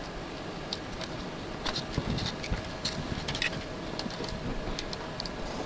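Light clicks and rustles of wire bundles and small plastic connectors being handled and fed through a housing wall panel, densest in the middle, over a steady faint hum.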